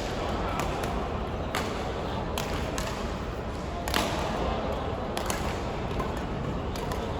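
Badminton rackets striking a shuttlecock in a doubles rally, sharp hits about once a second at uneven spacing, the loudest about four seconds in, over the echoing hum of a sports hall.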